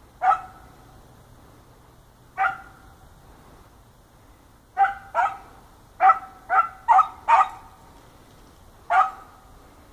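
A dog barking as it trails a rabbit's scent: about nine barks, single ones a couple of seconds apart, then a quick run of six in the middle and one more near the end.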